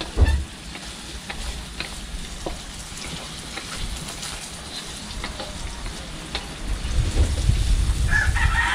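Garlic, ginger and onion sizzling in hot oil in a pan as they are sautéed, with the scrape and click of a spatula stirring. A low rumble rises near the end, and a rooster starts crowing in the last second.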